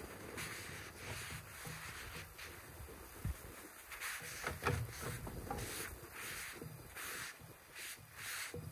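Paper towel rubbed in repeated short strokes around the rim of a hot griddle, over a faint sizzle of steak and vegetables and the low steady rumble of the gas fire pit beneath it.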